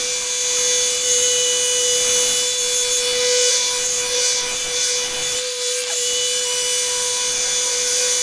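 Flex XC3401 VRG gear-driven orbital polisher running steadily on a plexiglass window with a steady whine, polishing out holograms with a fine polish.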